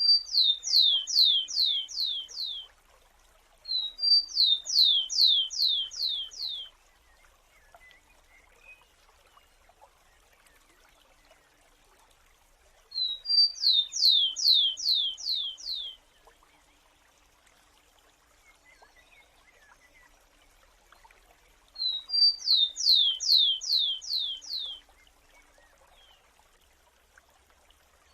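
A sparrow singing: four songs, each one or two short high introductory notes followed by a trill of about six down-slurred notes, each song lasting two to three seconds with long pauses between.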